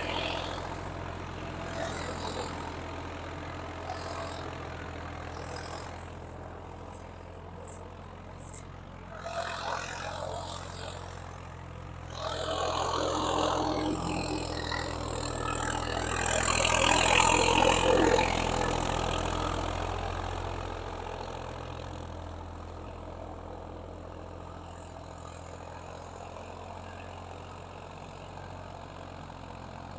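Swaraj 855 FE tractor's naturally aspirated diesel engine running steadily under load while pulling a thirteen-tine cultivator. It grows louder about halfway through as the tractor comes close, then fades back down.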